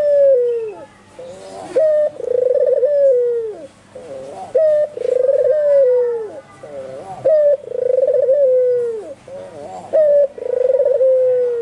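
White albino puter dove (domestic collared dove) cooing vigorously and without a break, about five coo phrases, each a short rising note followed by a long falling coo.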